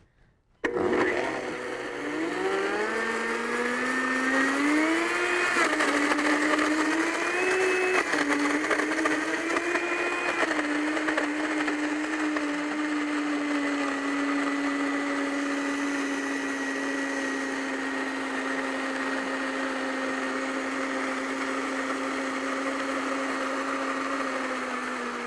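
Countertop blender switched on about half a second in, blending collard greens, frozen berries, dates and water into a smoothie. Its motor pitch climbs and wavers for the first ten seconds or so under the load of the frozen fruit, then holds a steady whine.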